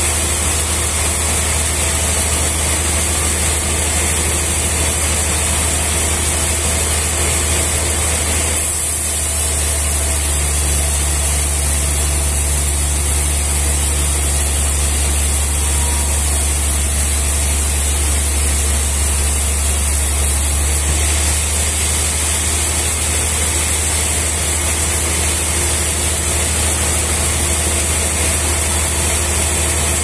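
Large band sawmill running and sawing a trembesi (rain tree) log: a steady, loud machine drone with a high hiss. The sound changes from about 9 to about 21 seconds in, when an extra low steady tone joins it.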